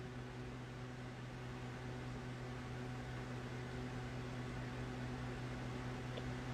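Steady low hum with a faint hiss: room tone, with a tiny click about six seconds in.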